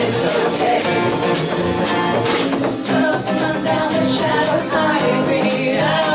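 Live folk song: women singing over a strummed acoustic guitar, with a hand-held frame drum beaten in time.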